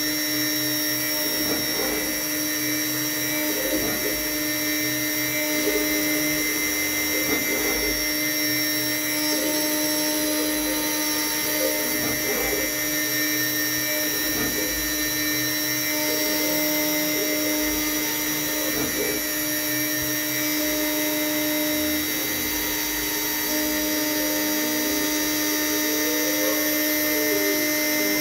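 CNC router spindle running steadily while a 0.5 mm conical bit carves birch plywood. Its steady whine carries several held tones, and a few other tones shift as the head moves along the carving path.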